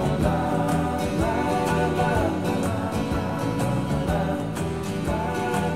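Background music: a song with a singing voice over a steady drum beat.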